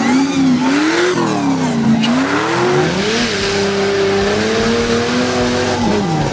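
Off-road 4x4's engine revving hard under throttle as it climbs through mud. The pitch rises and falls, holds high for a couple of seconds, then drops near the end.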